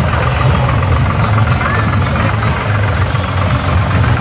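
Farm tractor's diesel engine running at low, steady revs close by as it slowly tows a parade float, a steady deep rumble, with crowd noise behind it.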